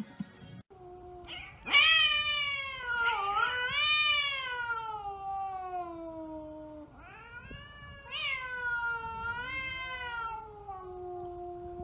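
Cat yowling: two long, drawn-out calls. The first swells up about two seconds in and slides slowly down in pitch over about five seconds, and the second follows straight on and runs almost to the end.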